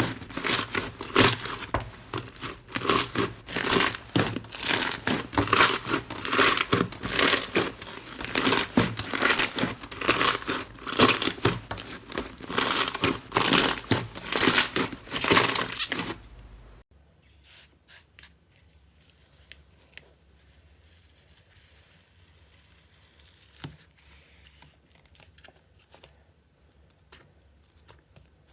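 Slime being squeezed and pressed by hand, giving a dense run of loud crackling and popping. About sixteen seconds in it cuts off abruptly to a much quieter stretch of slime handling with only occasional soft pops and clicks.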